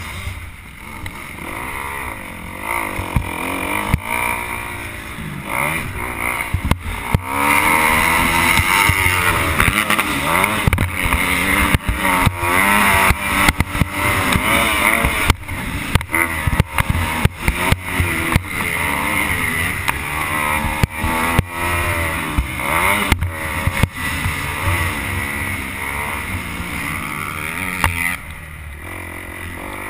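Motocross bike engine under hard riding, its pitch climbing and falling again and again with throttle and gear changes, mixed with many sharp knocks and clatter, picked up by a helmet-mounted camera. It eases off and gets quieter near the end.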